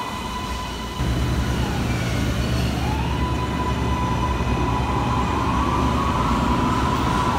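MARTA rapid-transit train running through an underground station: a low rumble of the cars on the track, with a steady electric motor whine that dips in pitch and climbs back two to three seconds in, then rises slowly near the end as the train gathers speed. The rumble gets suddenly louder about a second in.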